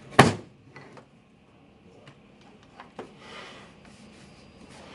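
A sharp knock of wood on wood, then a few light taps and some rubbing as glued wooden frame parts are handled and fitted together.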